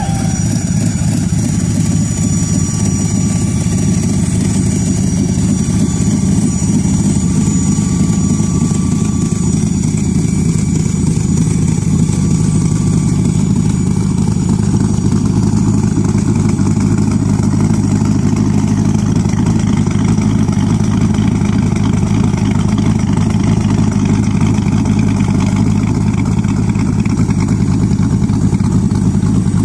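Boss Hoss trike's V8 engine idling steadily, with a deep, even exhaust note and no revving.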